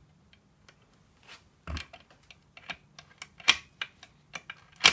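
Irregular clicks and knocks of a 42RE transmission's valve body and park pawl being worked into place against the transmission case, a dull knock a little under two seconds in and the loudest clicks near the end.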